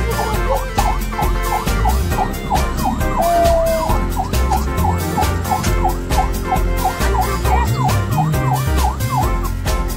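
Ambulance siren in a fast yelp, sweeping down and up about three times a second, with a short held tone about three seconds in, over background music with a steady beat.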